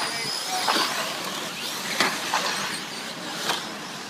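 Radio-controlled short-course race trucks running on the track: a steady high whine and tyre noise, with about four sharp clacks of hits and landings.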